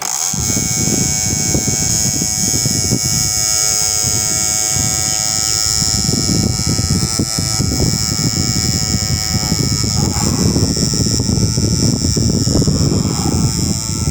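A small DC motor running at a steady speed with a constant high whine over a fluttering low rumble.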